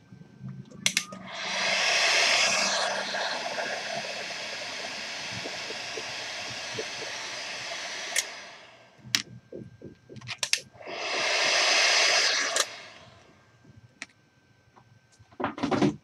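Hot-air heat gun blowing while shrinking heat-shrink tubing on wire joints: it runs for about seven seconds, louder at first, stops, then runs again for about two seconds. A few sharp clicks of handling come between and after the two runs.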